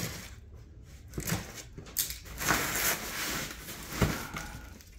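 Scissors scraping and cutting through packing tape on a cardboard box, with rustling of the cardboard and a sharp tap about four seconds in.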